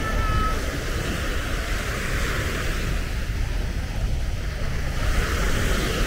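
Steady wind rumble on the microphone over an even hiss of surf.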